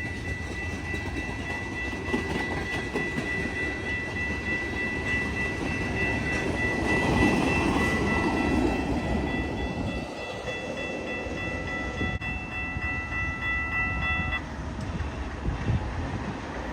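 CN reed-spray train passing: a steady rumble of the locomotive and rail cars rolling by. A steady high ringing tone runs over it and cuts off suddenly about 14 seconds in.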